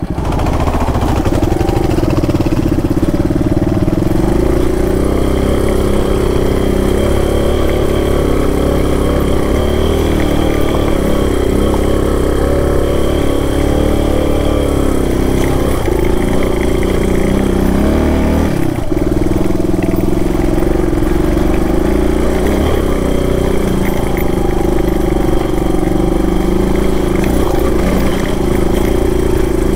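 Single-cylinder four-stroke dual-sport motorcycle engine running steadily under load, pulling up a steepening off-road trail, with one brief dip in the engine note about two-thirds of the way through.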